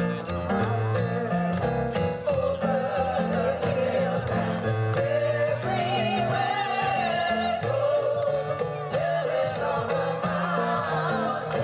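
Holiday music: jingle bells shaken on a steady beat under singing voices.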